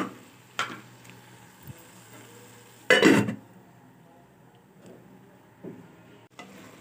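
Metal cooking-pot lid set on the pot with a loud clank about three seconds in, after a lighter knock about half a second in. The pan is being covered so the potatoes steam soft on low heat.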